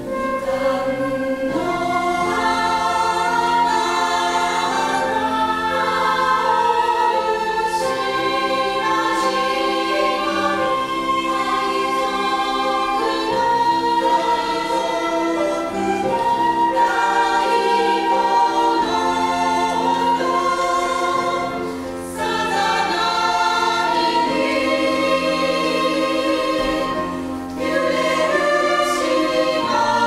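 Women's choir singing a Japanese song in harmony, accompanied by piano and acoustic guitar. The singing pauses briefly twice, for breath, in the latter part.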